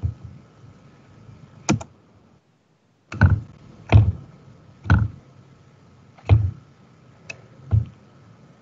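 A series of about eight short, dull knocks at irregular intervals, roughly a second apart, over a faint steady high-pitched hum. The sound cuts out to silence briefly about a third of the way in.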